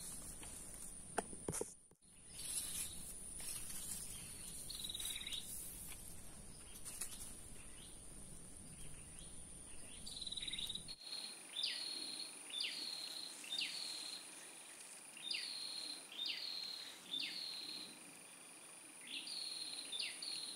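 Outdoor ambience: a steady high-pitched insect drone, with a bird repeating short falling call notes, scattered in the first half and about one a second in the second half.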